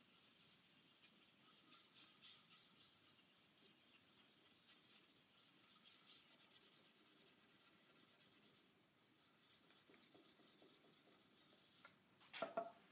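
Faint, rapid strokes of fine-grit wet sandpaper rubbing on a waterborne lacquer guitar finish, easing off about nine seconds in. Near the end comes a brief, louder squeak.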